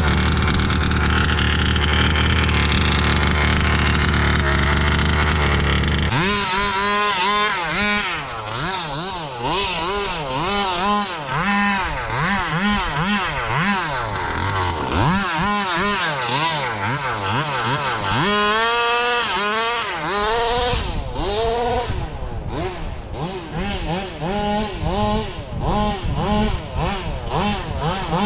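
Small two-stroke petrol engine of a 1/5 scale Baja RC buggy. It runs steadily at first, then from about six seconds in revs up and down over and over in short, rising and falling bursts of throttle.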